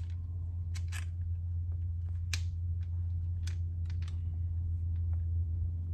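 Light metallic clicks and taps as banjo tension hooks are handled and snagged onto the tension hoop, a handful of separate clicks, over a steady low hum.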